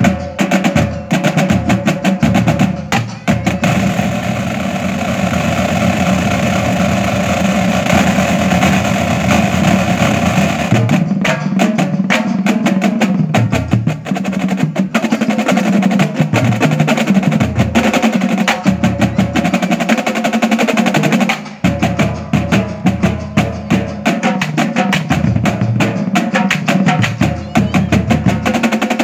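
Marching drum line, a battery of snare drums, tenor drums and bass drums, playing a loud cadence of rapid stick patterns with stretches of rolls. There is a short break about three quarters of the way through before the stick patterns start again.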